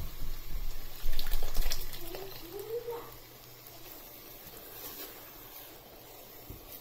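Thick tomato puree poured from a ladle into a pot of simmering gravy, the loudest wet plopping about a second in. After that it settles to a faint sound of the sauce being stirred with a silicone spatula.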